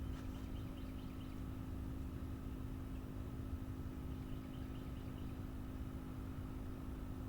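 Frogs calling in quick high trills, twice, over a steady low rumble and hum.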